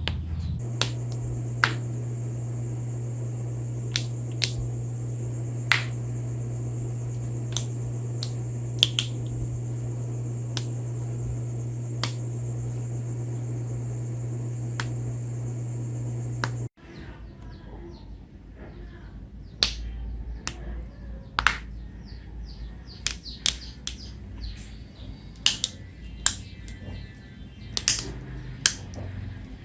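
Knuckles and finger joints cracking: single sharp pops every second or two over a steady hum, then after a sudden cut the hum is gone and the pops come faster, in clusters near the end.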